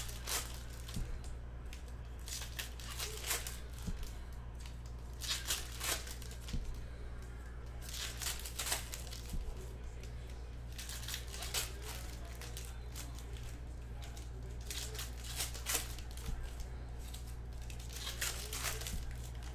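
Foil trading-card pack wrappers being torn open and crinkled by hand, in crackly bursts every few seconds, over a steady low hum.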